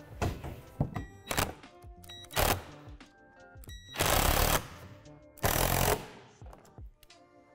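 Ridgid 12-volt cordless drill driving bolts into plastic playset wall panels, in two short loud bursts about halfway through and again a second or so later. Before them come a few sharp knocks of panels and hardware being handled, all over background music.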